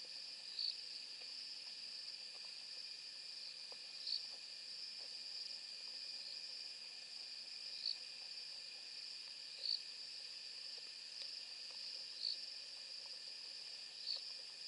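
Night chorus of crickets: a steady high trill, with a louder short chirp repeating every two to four seconds.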